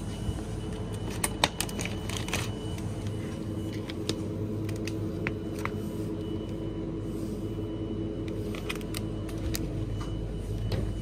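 Steady low hum of supermarket refrigerated display shelving, with scattered clicks and light rattles from a shopping trolley and a plastic pack of sliced meat being handled. The clicks come in a cluster a second or two in and again near the end.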